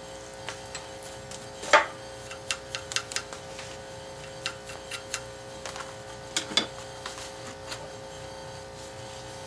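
Irregular light clicks and knocks of hand tools and metal on a 4140 steel plate as a tap is worked and cleaned by hand, the sharpest about two seconds in, over a steady hum.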